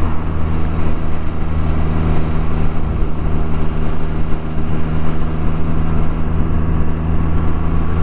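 Can-Am Spyder three-wheeled motorcycle's engine running steadily while riding, a constant low drone with wind and road rush over the onboard microphone.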